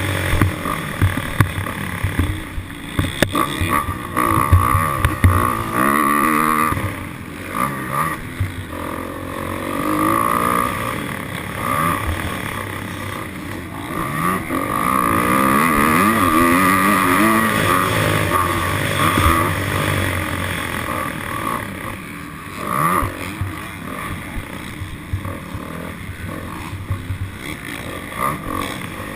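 Dirt bike engine being ridden hard, its pitch repeatedly rising and falling as the rider opens and closes the throttle and shifts.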